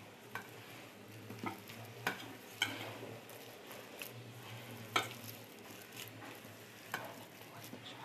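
A hand squeezing and kneading a moist mixture of chopped leaves and rice flour in a stainless steel bowl, a soft wet crackle broken by irregular sharp taps against the metal bowl, over a steady low hum.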